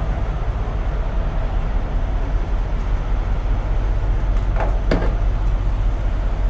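Semi-truck running, a steady low rumble of diesel engine and road noise, with a couple of short clicks about two-thirds of the way in.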